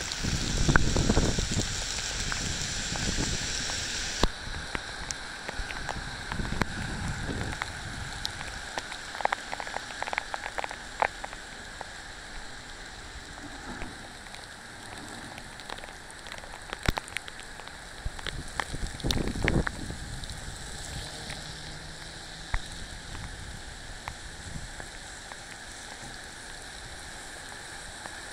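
Torrential typhoon rain pouring onto a wet street and pavement: a steady hiss with many sharp close drips and splats. A few low rumbles come and go, the loudest in the first few seconds.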